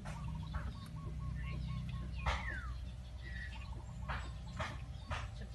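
Background farmyard birds, chickens among them: a quick run of short chirps in the first two seconds, then a single falling call, over a steady low hum with a few sharp knocks.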